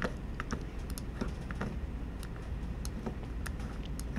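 Scattered, irregular clicks of a computer mouse and keyboard at a desk, over a steady low hum.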